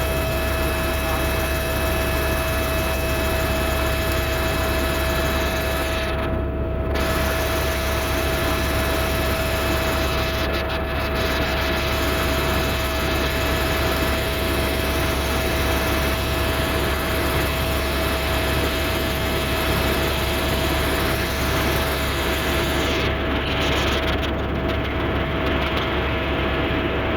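Helicopter in flight: steady engine and rotor noise, a low rumble with a constant whine over it.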